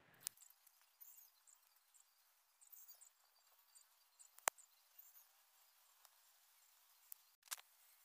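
Near silence with faint high-pitched chirping repeating in the background. A few sharp clicks come from sticks and cord being handled while a snare trap is set; the loudest is about halfway through.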